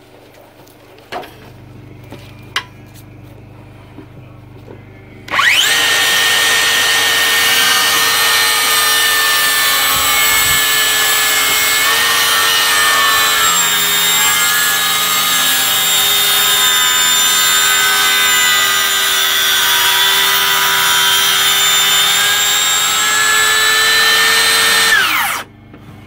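Cordless DeWalt circular saw starting up about five seconds in and cutting into a squared timber beam with a steady high whine for about twenty seconds, then winding down near the end. The cuts are kerfs made short of the layout line so the waste can be chiselled out to the line. Two sharp knocks come before the saw starts.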